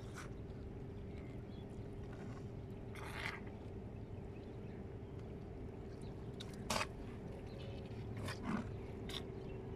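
Short knocks and scrapes of hands and a plastic bucket handling a caught cuttlefish on wet concrete, loudest about seven and about eight and a half seconds in. Underneath runs steady seaside background noise with a faint steady hum.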